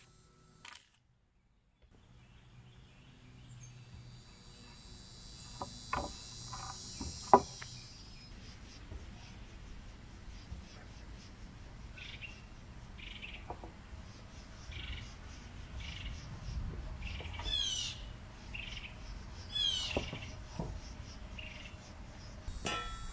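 Outdoor ambience with birds calling: short high chirps, then two quick descending calls. A few sharp knocks come about six to seven seconds in, the last one the loudest.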